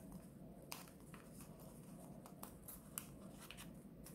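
Folded colored paper being pressed and adjusted by hand: a handful of faint, crisp paper ticks and crinkles over a near-silent room.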